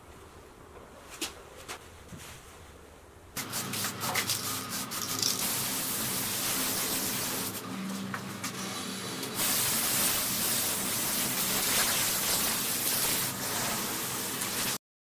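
An aerosol spray can hissing in long bursts as a coat is sprayed onto a wooden model airplane, after a few faint clicks. The spray eases briefly midway, comes back strongly, and cuts off suddenly near the end.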